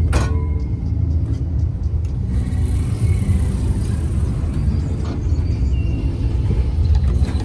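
Steady low rumble of a moving vehicle, with a single sharp click right at the start.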